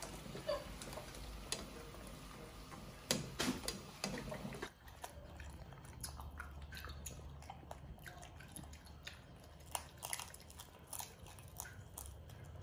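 A few clinks and knocks of a metal strainer and utensils at a frying pan of pasta, then, after a change about five seconds in, a run of small wet clicks and smacks of a baby monkey chewing a cooked shrimp.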